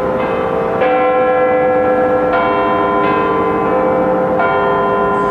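Clock-tower bells chiming a slow tune. Each new strike changes the pitch and rings on over the ones before, with several strikes in all.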